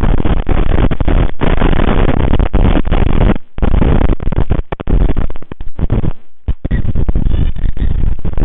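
Strong wind buffeting an outdoor livecam microphone: loud, steady wind noise with several brief dropouts where it cuts out for a moment, including one near the middle.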